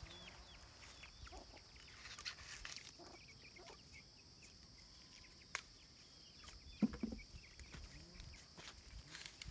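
Quiet farm ambience: a steady high insect drone, many short bird chirps, and chicken clucks, the loudest about seven seconds in. A few sharp snaps and rustles come from the corn stalks as ears are picked.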